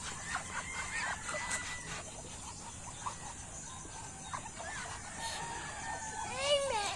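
Farmyard poultry calling: a scatter of short clucks and chirps, with one louder call near the end that rises and then falls.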